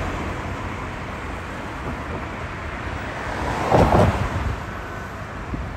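Road traffic running steadily on the bridge, with one vehicle passing louder about four seconds in.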